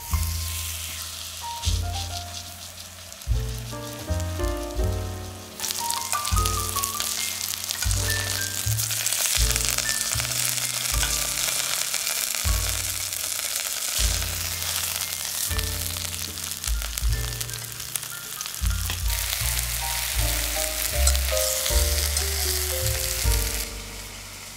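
Semolina-coated chicken breasts frying in olive oil in a steel frying pan: a steady hissing sizzle that grows louder about six seconds in and dies away near the end. Background music with a low beat plays underneath.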